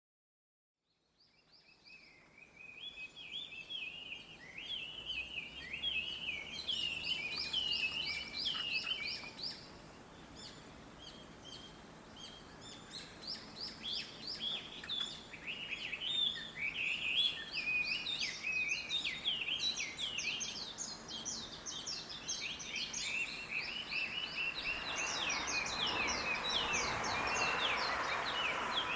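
Many small birds chirping and twittering together in a tree, fading in after about a second with fast, overlapping calls. A rushing noise swells under the birdsong near the end.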